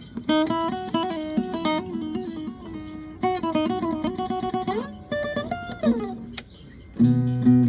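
Acoustic guitar being played: picked single-note phrases with a couple of sliding notes, then strummed chords near the end.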